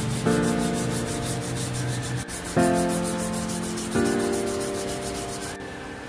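Wet hand-sanding of a leaf-spring steel knife blade: abrasive paper rubbing back and forth along the blade. Background music with sustained chords that change every second or two plays over it.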